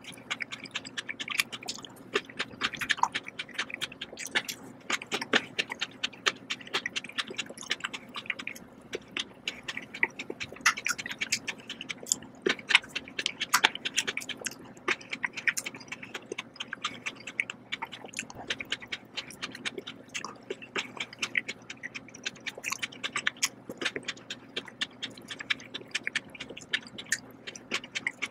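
Close-miked chewing while eating green grapes: a dense run of quick, sharp mouth clicks.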